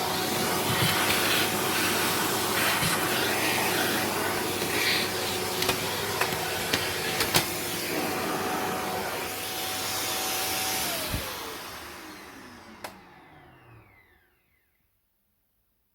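Vacuum cleaner running with a steady motor whine, with scattered knocks and rattles of things hitting the nozzle or hose. About eleven seconds in it is switched off: the whine falls in pitch as the motor winds down and the sound fades out over a few seconds.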